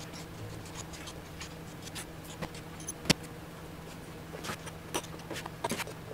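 Scattered light clicks, taps and knocks of metal and plastic parts being handled as a keyboard tray and monitor are fitted to a support arm, with one sharper click about three seconds in, over a steady low hum.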